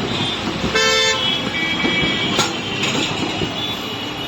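A vehicle horn honks once briefly about a second in, over steady street traffic noise, with another fainter horn tone soon after.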